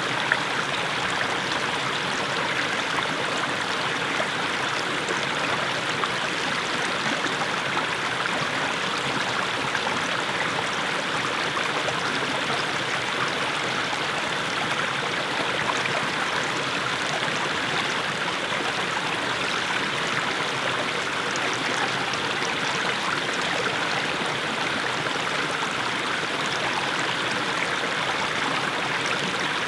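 Small mountain brook splashing steadily over low steps of mossy stones: an even, unbroken rush of running water. One brief tick sounds near the start.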